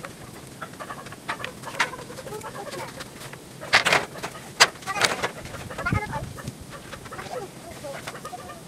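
Long bamboo poles knocking and clattering as they are laid onto a steel-framed cart, the loudest knocks around four seconds in, with chickens clucking.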